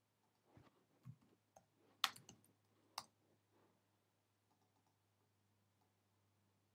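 A handful of faint computer keyboard and mouse clicks in the first three seconds, the sharpest about two and three seconds in, then near silence with a faint low hum.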